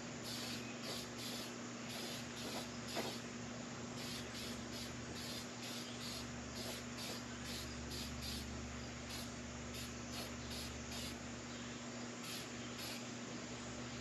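An insect chirps in a steady rhythm, about three short high-pitched pulses a second, in runs broken by brief pauses, over a low steady hum.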